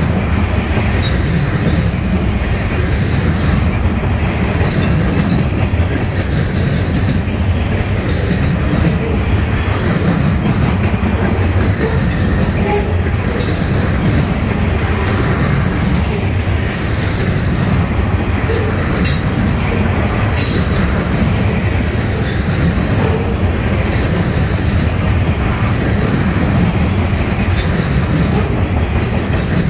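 Freight cars of a trash train rolling past: a loud, steady rumble of steel wheels on rail that does not let up, with a few faint clicks along the way.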